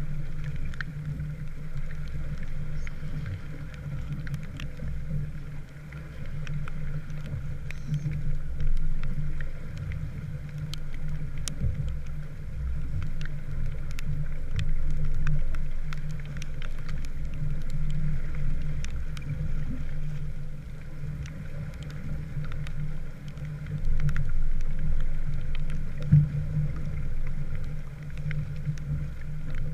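Small wooden sailboat under way: a fluctuating low rumble of water and wind with a steady low hum, and scattered light ticks throughout.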